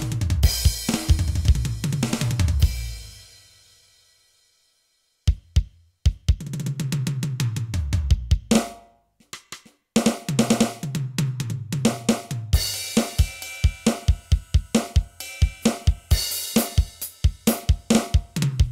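Roland TD-8 electronic drum module's kit sounds being played: kick, snare, cymbals and hi-hat, with tom fills running down in pitch. The playing stops twice, letting a cymbal die away once, then picks up with steady beats and more fills.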